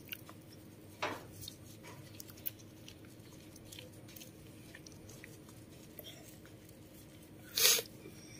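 Soapy hands rubbing and lathering a newborn monkey's wet fur: soft squelching and small scattered clicks, with a short rush of noise about a second in and a louder one near the end.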